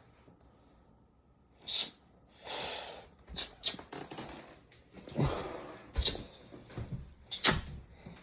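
A string of short knocks and clunks with a couple of brief rustling bursts, starting after a moment of near silence, irregularly spaced.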